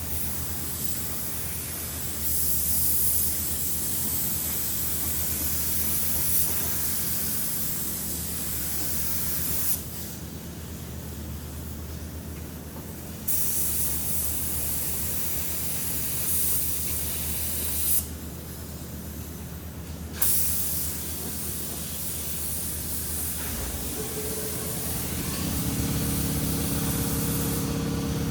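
Compressed-air paint spray gun spraying primer onto car doors and their jambs: a loud hissing spray in three long trigger pulls, broken by two short pauses about 10 and 18 seconds in. A steady machine hum comes in near the end.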